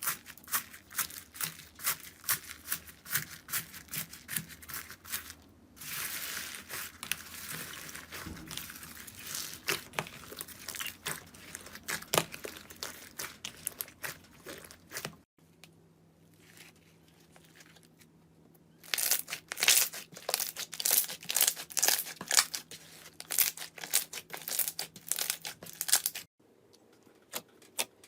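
Slime being pressed, stretched and poked by hand, giving dense trains of sharp crackling pops and crinkles as air pockets burst. The sound changes abruptly a few times where one clip cuts to the next, with a quieter stretch in the middle.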